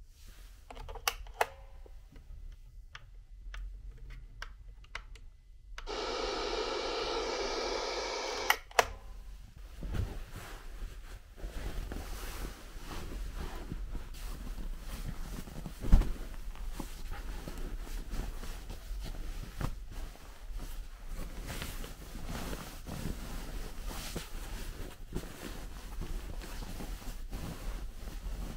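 A white wall-mounted MUJI pull-cord speaker plays a steady, tone-rich sound for about three seconds, starting after a few clicks, and then cuts off abruptly with a click. After that comes a long stretch of soft fabric rustling as a hand presses and smooths a down duvet and pillows, with one thump about halfway through.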